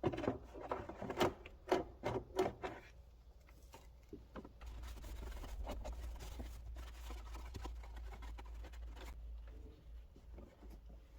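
Hands working on a car's plastic air filter housing and filter: a quick run of sharp clicks and knocks, then about four seconds of soft rubbing and rustling.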